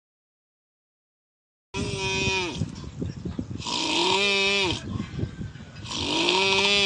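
A voice making three drawn-out calls, each rising and then falling in pitch, starting after about two seconds of silence.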